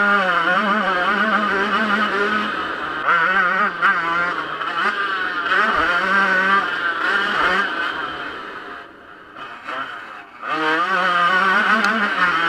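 Yamaha YZ125's 125 cc single-cylinder two-stroke engine revving hard under racing throttle, its pitch rising and falling quickly as it shifts and hits bumps. The throttle is shut off about eight seconds in, with the engine dropping to a quieter note for about two seconds, then it comes back on wide open near the end.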